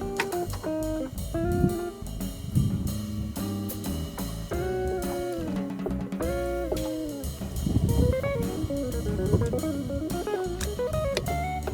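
Background music: guitar-led instrumental with bass and drum kit, a light jazzy groove.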